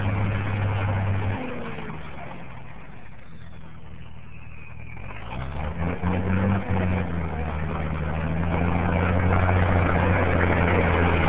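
M35A2 2½-ton military truck's six-cylinder multifuel engine pulling on a hill climb. It eases off and goes quieter about a second and a half in, revs back up with a rising pitch around six seconds, then holds a loud, steady pull.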